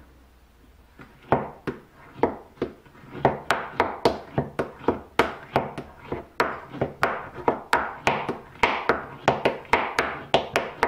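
Steel burnisher drawn in quick outward strokes along the edge of a steel card scraper, each stroke a sharp click and a short scrape. The strokes come sparsely at first, then about two to three a second. This is the stage of pushing the edge over to raise the burr on the scraper.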